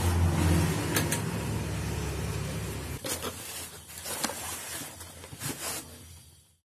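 A steady low motor hum that stops abruptly about three seconds in. After it, the stiff vinyl upholstery sheet rustles and crinkles with a few clicks as it is spread and smoothed by hand.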